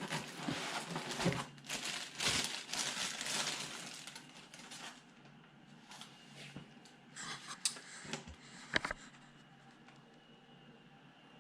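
Packaging crinkling and rustling as a radio transmitter is pulled out of its box, busy for the first four seconds or so, then a few scattered clicks and rustles later on.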